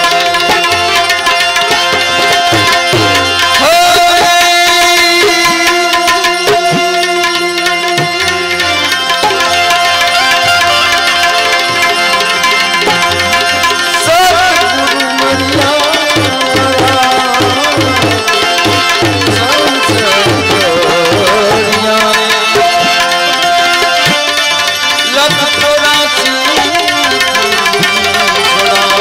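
Instrumental passage of a santvani bhajan: tabla beating a rhythm under a melody instrument holding long, steady notes.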